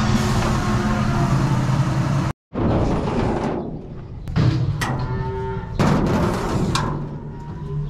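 John Deere tractor engine running steadily, heard from inside the cab, until a sudden cut about two and a half seconds in. Then, outdoors by the idling tractor, a cow gives one long moo lasting about a second.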